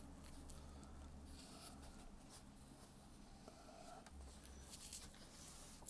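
Faint pencil strokes scratching on animation paper, in short irregular strokes.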